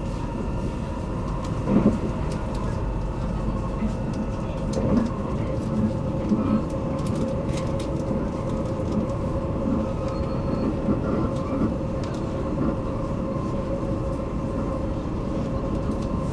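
Commuter train running, heard from inside the carriage: a steady rumble with a steady hum, broken by a few knocks from the wheels on the track, the loudest about two seconds in.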